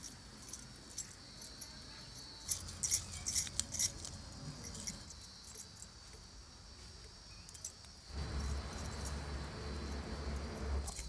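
Light, quick metallic clicking and scraping as small fish are scaled with a knife over a steel plate, thickest a few seconds in. A low rumble comes in about eight seconds in.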